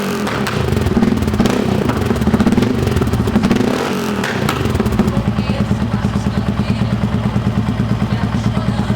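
Yamaha XT 660R single-cylinder engine with a Coyote SS1 carbon-fibre sport exhaust, revved up and down several times, then settling about five seconds in to a steady, pulsing idle.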